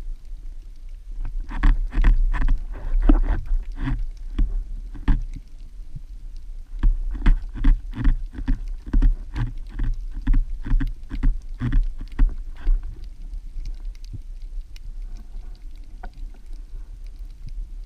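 Underwater sound picked up by an action camera mounted on a speargun: a steady low rumble of water with runs of sharp knocks and clicks, about two a second, which thin out near the end.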